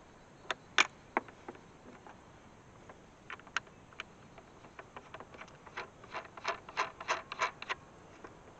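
Scattered sharp clicks and light scraping of fencing pliers and wire being worked at an electric fence charger's terminal, with a quicker run of clicks late on.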